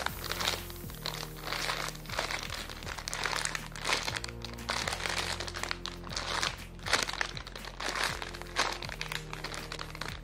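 Background music with held low notes, over the crinkling of a squishy toy's clear plastic bag as it is handled and turned over.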